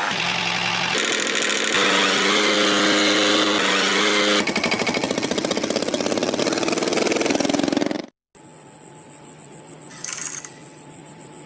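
Small engine running with an even drone, going into a fast pulsing throb about four seconds in, then cut off abruptly. After the cut comes a faint steady hum with a brief hiss.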